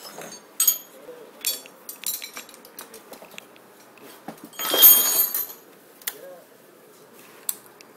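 Metal hand tools clinking and clattering as they are handled, with a louder noisy burst lasting under a second about five seconds in.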